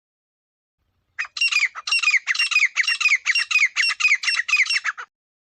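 Teetar (francolin) calling: a loud run of repeated, quickly falling whistled notes, about three a second, lasting about four seconds and starting a second in. It is the recorded call used as a hunting lure for teetar.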